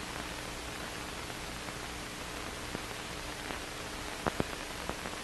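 Steady hiss of an old film soundtrack's noise floor, with a faint steady hum and a few soft clicks about four seconds in.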